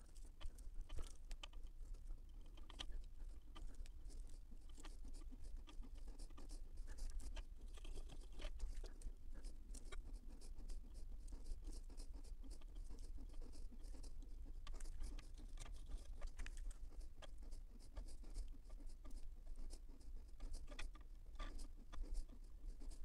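Faint, rapid light clicking and rustling of small wooden deck sticks as they are picked from a handful and pressed one after another onto a glued plastic flat-car frame.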